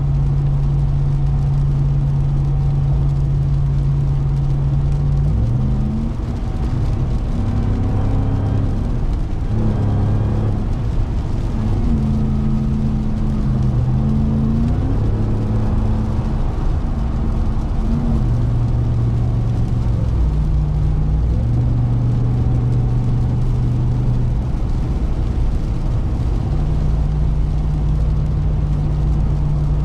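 Supercharged 6.2-litre Hemi V8 of a 2021 Ram 1500 TRX running under way, its note stepping down and up several times through the middle as the truck changes speed and gears, over a steady hiss of tyres and rain on the road.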